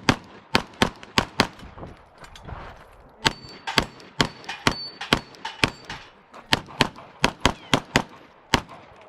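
Rapid 9 mm pistol fire from a Glock 17 during a timed practical-shooting stage. About twenty shots come in quick pairs and short strings, with brief pauses between target arrays.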